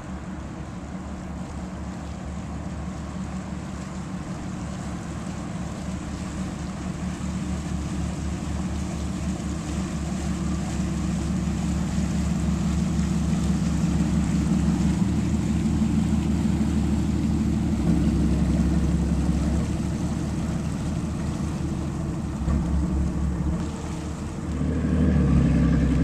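Marlow Prowler 375's inboard engines running at slow manoeuvring speed, a low steady rumble that grows louder as the boat draws near and passes. There is a brief louder surge near the end as it turns away.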